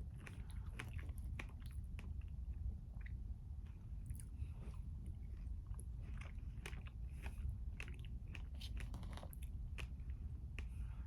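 A person chewing a mouthful of brownie dessert close to the microphone, with many small wet mouth clicks at an irregular pace.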